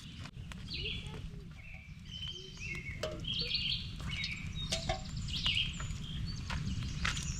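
Wild birds chirping, many short call notes scattered throughout, over a low steady rumble of background noise.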